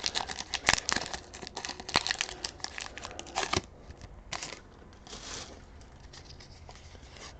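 Foil booster pack wrapper crinkling and tearing open, with dense crackling for the first three and a half seconds, then a few softer rustles.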